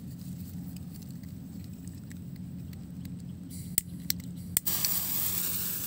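Rustling of grass and dry rice stubble underfoot over a low steady hum. A few sharp snaps come about four seconds in, and then the rustling hiss grows louder.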